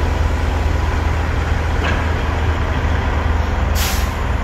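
Heavy diesel engines of a mobile crane and semi trucks running at idle: a steady low rumble. There is a brief high hiss near the end.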